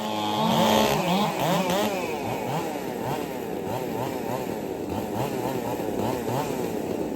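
Several two-stroke racing chainsaws of the 4 cubic inch class revving up and down over and over. Their pitches rise and fall out of step, crossing one another, as the saws are warmed up before a heat.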